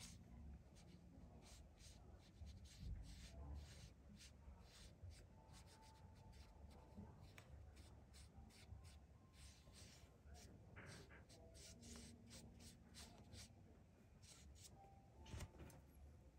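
Faint watercolor brush strokes on paper, a long irregular series of short, soft scratchy strokes.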